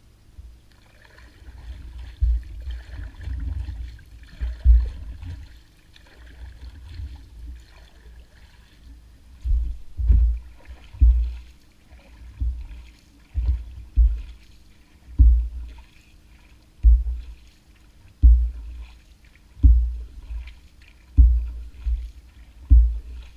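Paddling a small narrow boat with a plastic paddle: water swishes and splashes with each stroke, and a low thump comes with every stroke. The strokes settle into a steady rhythm of about one every one and a half seconds partway through.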